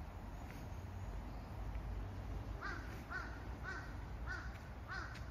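A crow cawing five times in quick succession, about two calls a second, starting about halfway through, over a low steady rumble.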